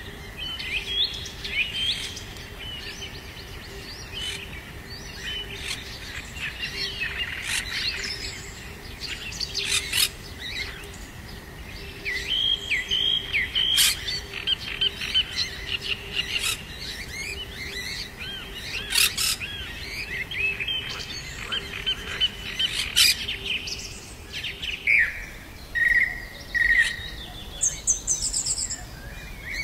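A chorus of birds chirping and calling over one another, with a few sharp, loud calls standing out now and then. A faint steady low hum lies beneath until near the end.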